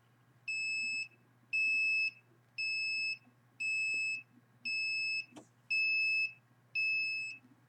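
Handheld RF signal detector beeping steadily, seven high-pitched beeps about one a second, each just over half a second long. This is its alert that it is picking up a low-level signal from a nearby computer.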